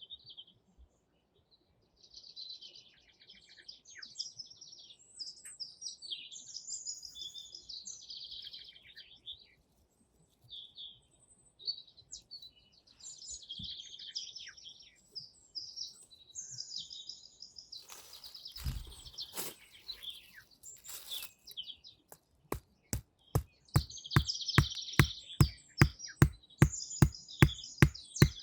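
Small songbirds singing in repeated chirping phrases. About two-thirds of the way in comes a brief rustle, and near the end a fast, even series of sharp clicks starts, about three or four a second, louder than the birds.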